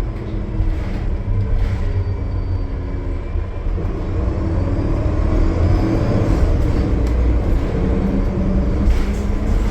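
Cummins ISL9 diesel engine of a 2020 Gillig Low Floor bus under way on the highway: a steady low rumble that grows a little louder about four seconds in, with a faint whine rising in pitch partway through.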